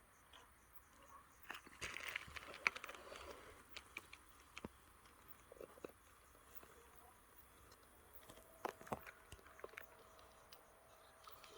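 Faint chewing of cherry tomatoes: small wet clicks and crunches, busiest about two seconds in and again around nine seconds. A faint steady hum comes in about eight seconds in.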